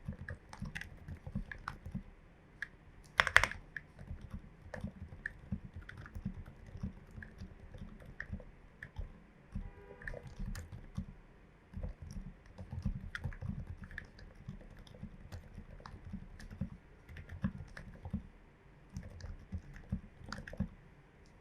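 Steady typing on a tape-modded Glorious GMMK Pro mechanical keyboard with lubed and filmed switches and MT3 keycaps, in an irregular stream of deep keystrokes. One much louder keystroke comes about three seconds in.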